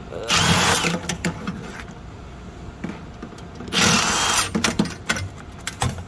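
Power drill backing screws out of a sheet-metal fire damper frame in two short bursts, the second about three seconds after the first, with small clicks between and after.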